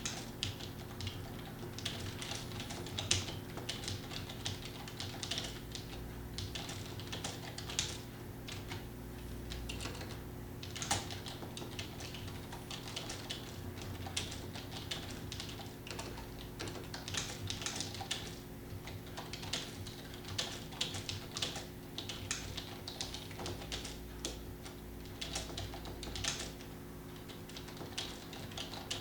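Fast, continuous typing on a computer keyboard, dense irregular key clicks with brief pauses, under a steady low hum.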